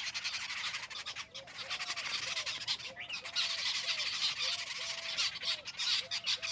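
Jungle babblers chattering: a dense, rapid rasping chatter that keeps going, with a lower, clear arched note repeating over and over from about a second in.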